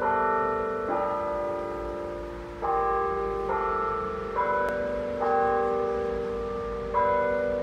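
Verdin Singing Tower Classic electronic carillon playing a slow tune in church-bell tones: about seven notes, each struck and left ringing into the next.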